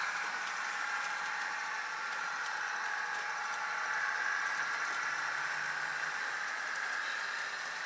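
DCC sound decoder in a model Budd RDC railcar playing its diesel engine running sound through the model's small speaker: a steady, thin hum.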